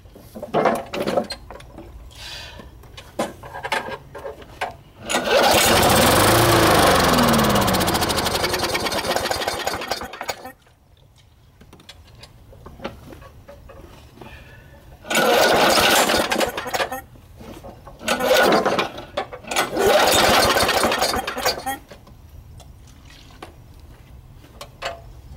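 Walk-behind lawn mower's small gas engine, running on windshield washer fluid instead of gasoline, catches and runs for about five seconds, its pitch falling as it slows before it cuts out. Later it fires again in three shorter bursts of a second or two each.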